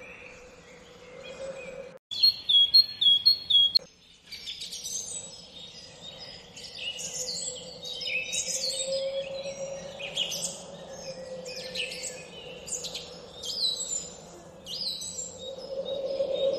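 Several songbirds chirping and singing over a steady drone. About two seconds in, a bird gives a quick series of loud, repeated falling chirps, and the sound cuts out briefly before and after it.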